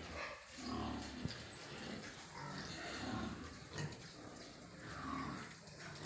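Young pigs grunting in a pen, several calls one after another, with a short sharp click about a second in.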